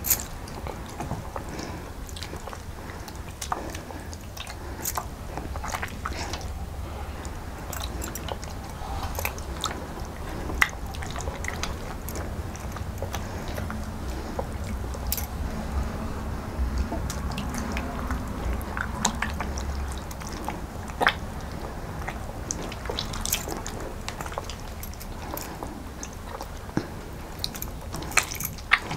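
Hands squeezing ripe mango peels and pulp in a steel bowl of water: wet squelching and dripping with many small clicks, mixed with children biting and chewing on pieces of mango.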